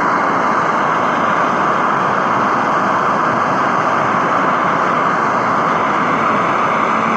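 Electric welding arc running steadily with an even hiss, welding washer doublers onto steel interplane-strut lugs.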